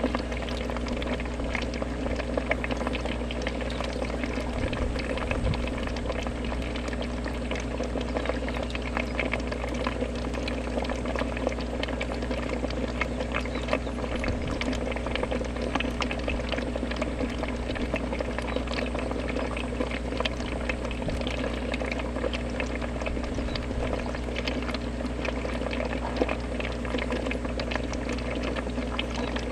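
Aquarium water bubbling and trickling steadily from the tank's filter or aeration, over a steady electric hum from its pump.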